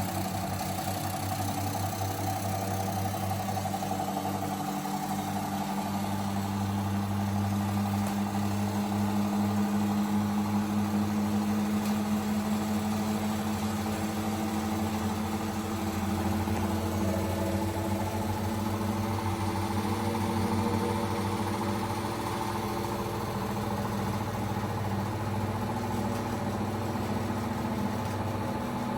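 New Hoover H-Wash 500 washing machine on a test spin: the motor and spinning drum hum steadily while the machine rattles.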